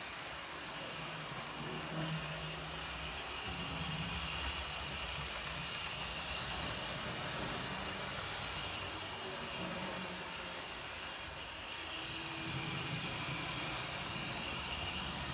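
Bachmann 4-4-0 model steam locomotive running along the track with its coaches: a steady whir from its small electric motor and wheels rolling on the rails, with no stalling or shuddering. The sound gets slightly louder near the end.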